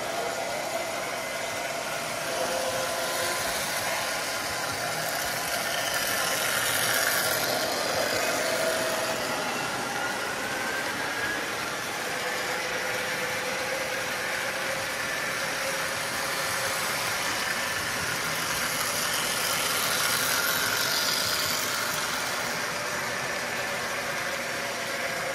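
Lionel postwar 2065 model steam locomotive pulling its cars around three-rail tubular track: a steady whir of the motor with the rattle and rumble of wheels on the rails, swelling twice as the train passes close.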